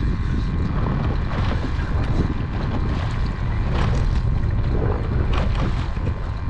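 Wind buffeting the microphone aboard a fishing boat in rough water: a steady low rumble with scattered short clicks.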